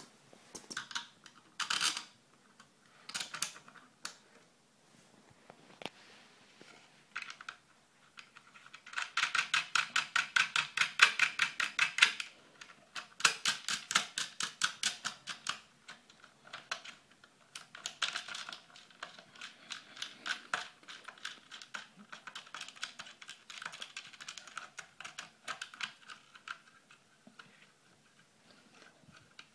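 Rapid metallic clicking in several bursts as a nut is turned by hand on the spring-loaded threaded rod of a homemade wooden coin-ring machine, loudest about a third of the way in.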